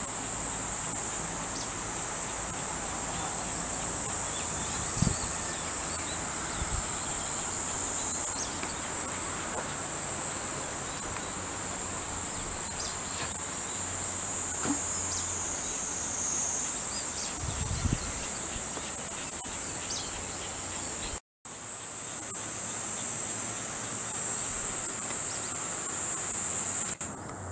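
Summer cicadas droning in one steady, high-pitched chorus. The sound cuts out for a split second about three-quarters of the way through.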